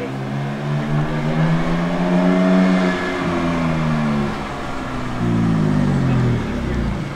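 A supercar's engine accelerating: the engine note climbs in pitch for about two and a half seconds, then falls away. About five seconds in, a second engine note comes in higher and drops off again.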